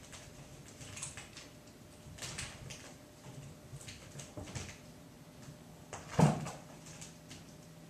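Kittens rough-housing: scattered scuffles and light knocks as they wrestle and bump into things, with one louder thump about six seconds in.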